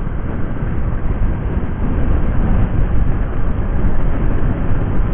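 Loud wind noise buffeting a phone-headset microphone inside an open-visor motorcycle helmet on a scooter at about 60 km/h, growing louder about a second and a half in as the speed rises.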